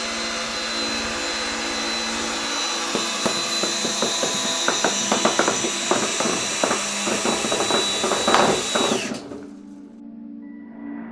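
Power drill running at full speed, spinning balloons on a string, with a run of sharp irregular knocks from about three seconds in. Near the end the drill's whine drops in pitch and it stops.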